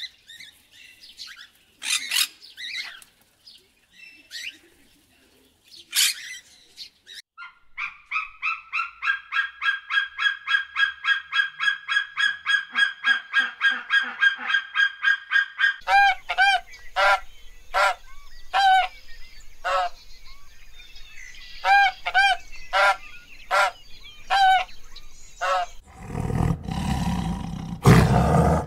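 A run of bird calls: scattered short squawks, then a fast even series of high notes at about four a second, then repeated honking calls. A loud, rough animal call starts near the end.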